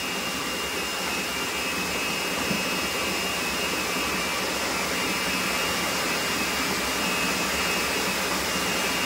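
Steady whooshing noise of a fan or motor running, with a faint high whine, unchanging throughout.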